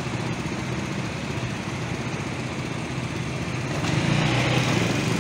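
Motorcycle engine idling in stopped city traffic with a steady, rough low hum, growing louder about four seconds in.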